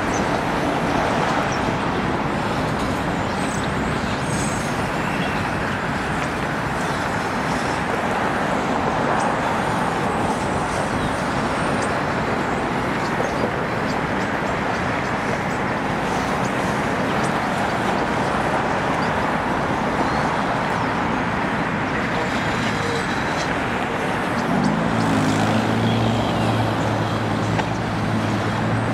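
Freight train of CSX coal hopper cars rolling steadily past, a continuous rumble and hiss of steel wheels on rail. A low engine hum joins in near the end.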